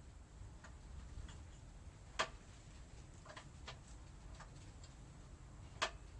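Sparse, irregular light clicks and taps of parts and tools being handled during brake bleeding, with two sharper clicks, one about two seconds in and one near the end, over a faint low hum.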